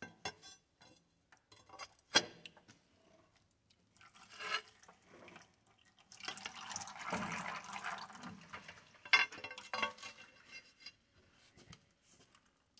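Scattered metallic clanks and knocks of tools and tractor parts being handled on a shop floor, with a few seconds of rushing noise in the middle.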